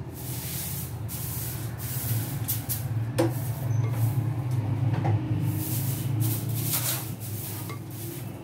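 Metal spoon scraping and stirring through thick cake batter of flour, oil and sugar in a glass bowl, in short uneven scraping strokes, with one sharp click about three seconds in. A steady low hum runs underneath.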